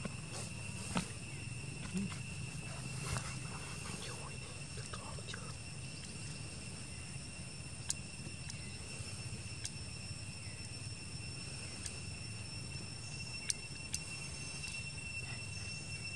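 Forest ambience: a steady high-pitched insect drone over a low background hum, with a few faint clicks.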